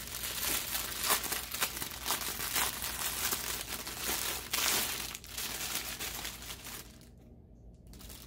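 Thin clear plastic wrap crinkling and crackling as it is peeled off and pulled away from a padded cloth foot bootie. The crinkling is dense and busy, then dies down about seven seconds in.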